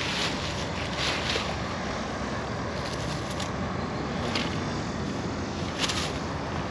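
Steady hum of highway traffic, with a few short, sharp noises over it.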